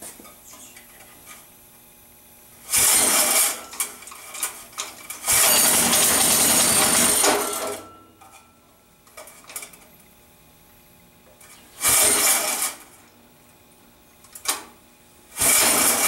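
Briggs & Stratton 3 hp minibike engine being pull-started: repeated yanks on the recoil starter. It gives loud, short bursts with a longer burst about five seconds in, and it does not settle into running.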